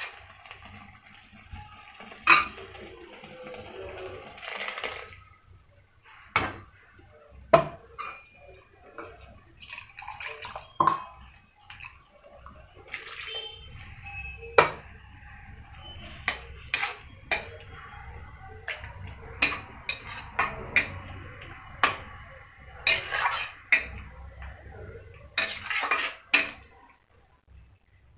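A metal spoon stirring cooking greens in a stainless steel kadai, clinking and scraping against the pan many times, with some liquid sloshing.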